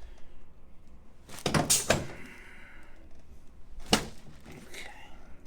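Chiropractic adjustment on a patient lying face down on the treatment table. There is a quick cluster of thuds about a second and a half in, followed by a short rustle, then a single sharp knock about four seconds in.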